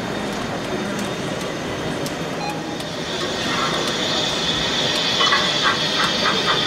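Model train running on an exhibition layout: steady running noise, with a hiss that builds from about three seconds in and, from about five seconds in, a rapid even pulsing of about five beats a second.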